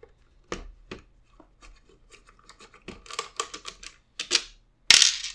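Hands working the plastic internal assembly of a Mavo 35 analog multimeter loose from its case: scattered small plastic clicks and knocks, a quick run of clicks about three seconds in, and a louder short scrape near the end as the assembly comes free.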